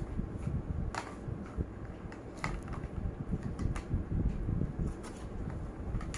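Handling noise as cans and their packaging are moved about: scattered light clicks and knocks over a low steady rumble.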